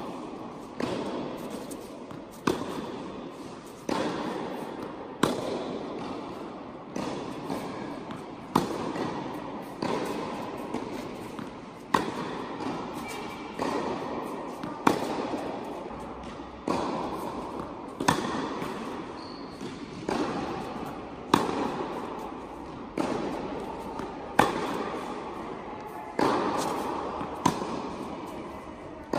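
Tennis rally on an indoor hard court: racket strikes and ball bounces, a sharp pop every second or two, each ringing out in a long echo around the hall.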